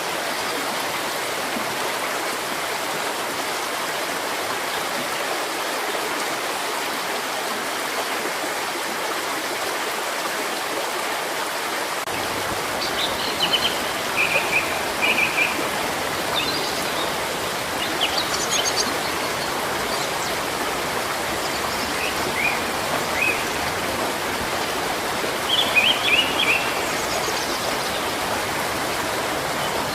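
A stream of running water rushes steadily, and small birds chirp in short clusters of quick notes from about halfway through.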